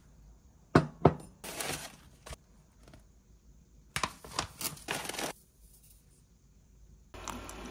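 A ceramic mug is set down on a wooden shelf with two sharp knocks, then the paper wrapper of a tea bag is crinkled and torn open in short bursts. A steady hiss starts near the end.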